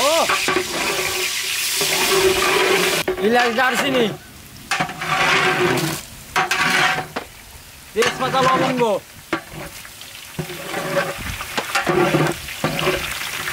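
Sliced onions and whole spices sizzling in hot oil in a large aluminium pot. The sizzle is loud and even for the first few seconds, then comes and goes in bursts as the pot is stirred with a ladle. A few brief voice-like sounds rise over it.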